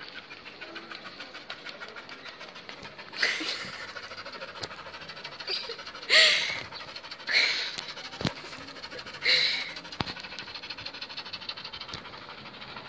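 Small dog panting with rapid, even breaths, with four louder breathy puffs or sniffs spread through the middle.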